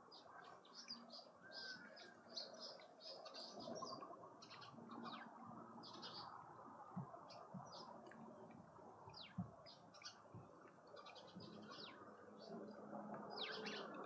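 Small birds chirping in quick, short high notes, faint and irregular, with a couple of soft knocks partway through.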